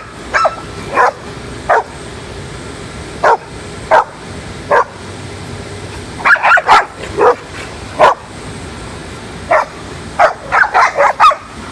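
Two dogs in a noisy back-and-forth of short, sharp barks and yips: an older dog correcting an over-the-top 10-month-old puppy that barks back. Single barks come every second or so, with quick flurries about halfway through and again near the end.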